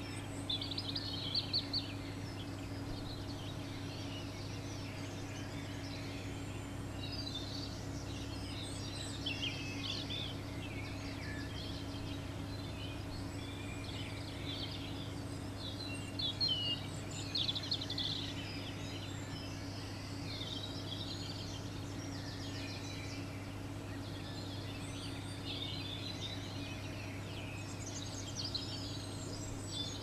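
European greenfinch twittering and chirping in short bursts, loudest about a third and halfway through, over a steady low hum.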